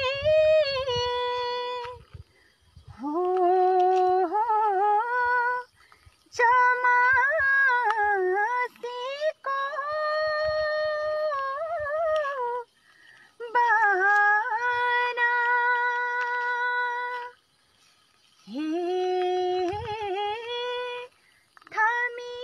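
A woman singing a Kumauni folk melody unaccompanied, with long held notes, vibrato and sliding ornaments, in phrases broken by short pauses.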